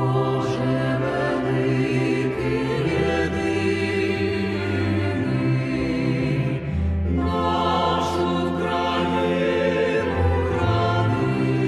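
Music: a choir singing long held notes over low sustained tones.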